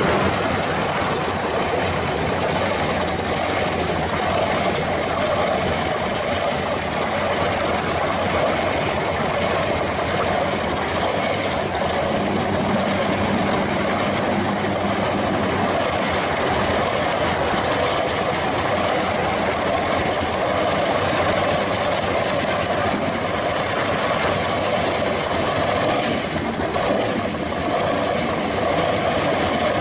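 Hot rod pickup's exposed engine running steadily at low speed as the truck creeps along.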